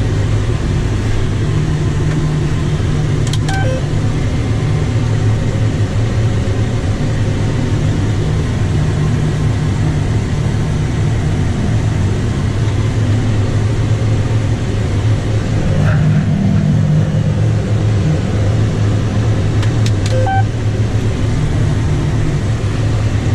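John Deere 7630 tractor running steadily under load while pulling a potato planter, with a couple of brief clicks about three seconds and twenty seconds in.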